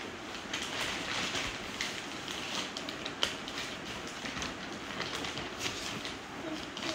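Cloth rustling and plastic packaging crinkling as a sweatshirt is shaken out and unfolded by hand, with a sharp crackle about three seconds in.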